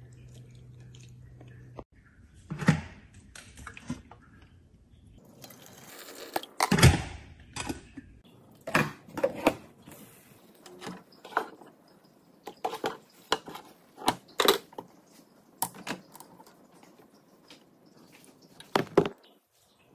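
Irregular taps, clicks and knocks of pancake cooking: a silicone spatula working in a nonstick frying pan and pancakes being handled on a wire rack and plate. A low hum stops about two seconds in.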